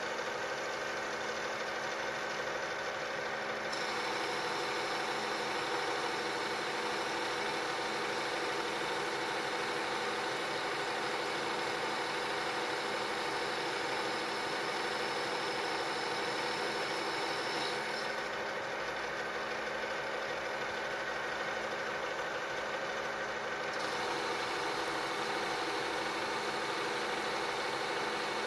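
Lathe spindle and headstock gearing running steadily, a general-purpose lathe converted to CNC with an inverter-driven spindle; a steady mechanical whir with several held tones, its higher hiss changing about 4, 18 and 24 seconds in.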